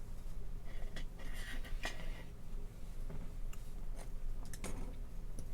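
Small plastic model-kit parts being handled and fitted together on a workbench: scattered light clicks, with a brief scratching about one and a half seconds in.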